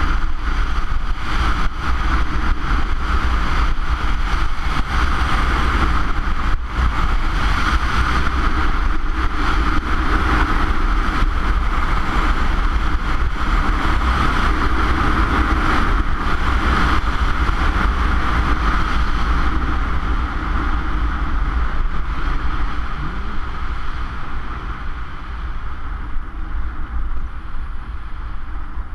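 Wind buffeting a GoPro's microphone on a fast run down a ski piste, a heavy low rumble, with the hiss and scrape of edges on hard, icy snow over it. It grows quieter over the last several seconds.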